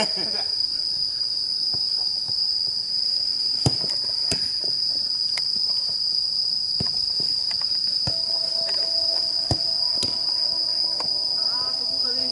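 Insects trilling in one steady high note. Several sharp knocks come through it, from the ball being kicked on the futsal pitch.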